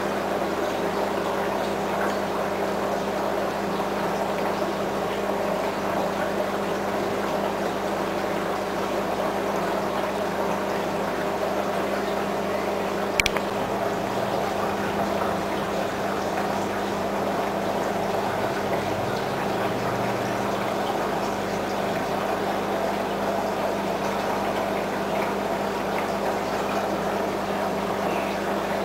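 Aquarium water pump and filter running: a steady trickling, pouring water noise over a low motor hum. A single sharp click about halfway through.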